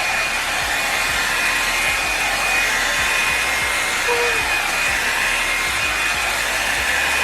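Revlon One Step Hair Dryer and Volumizer hot air brush running steadily on its high setting: a constant rush of blown air with a thin steady whine over it.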